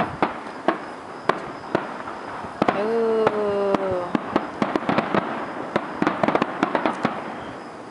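Aerial fireworks display: a quick string of sharp bangs and pops from bursting shells, thickening into dense crackling from about halfway through, then thinning out near the end.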